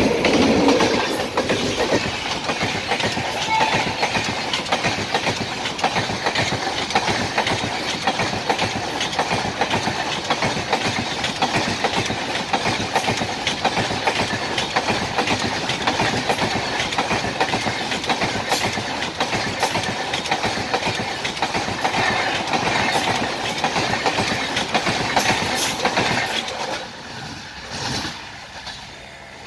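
Express train passing close by at speed: the WAP7 electric locomotive goes past at the start, the loudest moment, then its passenger coaches roll by with a steady rolling noise and the clickety-clack of wheels over rail joints. The sound falls away near the end as the last coach goes past.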